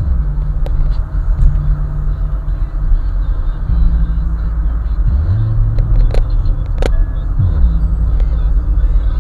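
Car sound system with a subwoofer playing bass-heavy music. Deep bass notes hold and step between pitches, with a couple of sliding notes, over the car's running rumble.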